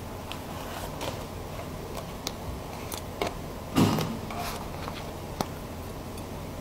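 Scattered light clicks and taps from handling a cake and a spoon on its cake board, over a steady background hiss, with one louder knock a little under four seconds in.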